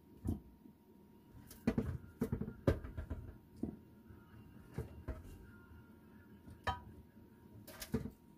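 Kitchen tongs clacking and knocking against a metal roasting pan and a ceramic serving dish as chicken wings are lifted across one by one: a run of irregular clacks, a few louder near the start and about two-thirds of the way through.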